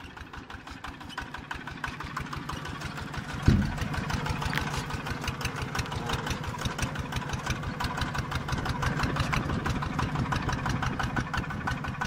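Small farm tractor's engine running with a fast, even beat as it pulls a disc plough through the soil. A sharp thump comes about three and a half seconds in, and the engine runs a little louder after it.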